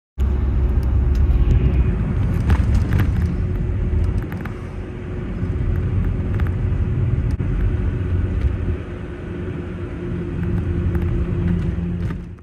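Steady low rumble of a vehicle in motion, with a constant hum and scattered light clicks; it starts and cuts off abruptly.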